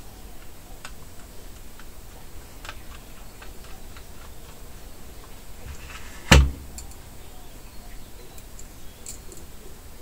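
Small screwdriver clicks and ticks against a metal drive bracket and screws as an SSD is fastened in, with one louder knock about six seconds in.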